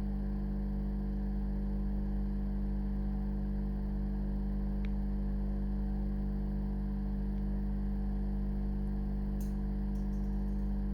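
Steady electrical hum made of several constant low tones, unchanged throughout, with a single small click about five seconds in.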